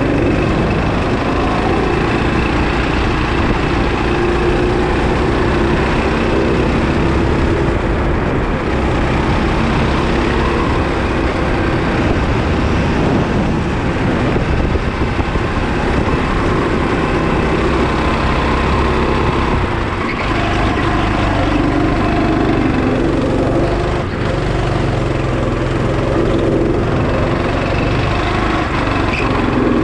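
Go-kart engine running at speed on track, its note rising and falling as the kart accelerates along the straights and eases off into the corners.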